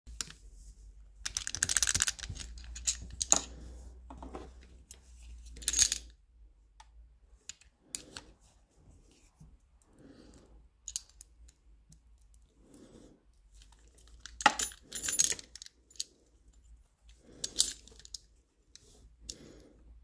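Small metal clicks and rattles as a lever-lock pick and tension tool work inside an ERA 975 five-lever padlock, with the steel padlock and tools handled in the hand. The clicks come singly and irregularly, with a few louder clusters of rattling.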